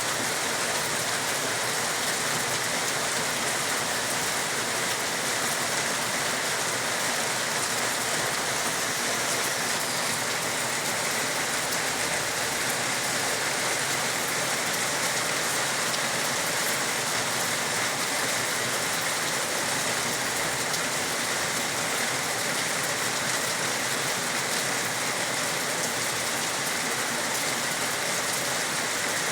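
Steady, even rain falling, with no breaks or separate claps.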